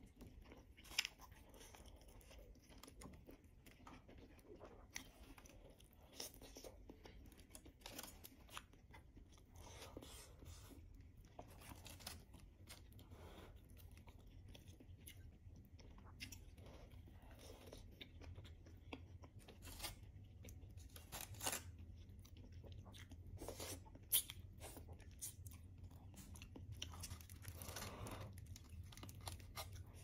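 Close-miked chewing and biting of baked chicken, with wet mouth clicks and the soft tearing of meat pulled apart by hand. Scattered sharp clicks run throughout, a few louder ones standing out.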